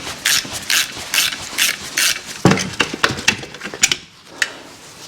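Hand ratchet wrench being worked to undo a suspension bolt on a car's rear subframe. It makes short rasping strokes, about three a second for the first two seconds, then slower, irregular clicks and knocks.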